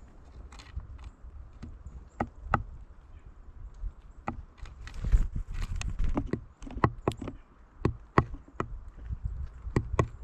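Irregular sharp taps and knocks, about one to three a second and busiest around the middle, typical of small birds such as tufted titmice and a downy woodpecker pecking and hammering on wood or seed, over a low steady rumble.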